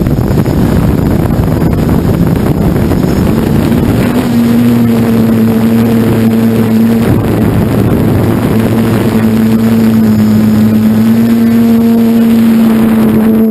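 FPV multirotor drone's electric motors and propellers, heard through its onboard camera. A rush of prop wash and wind at takeoff from the grass settles, about four seconds in, into a steady motor whine that dips briefly a couple of times.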